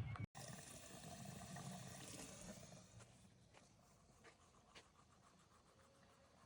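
Near silence: faint background noise with a sudden cut just after the start, fading further about halfway through, with a few faint ticks.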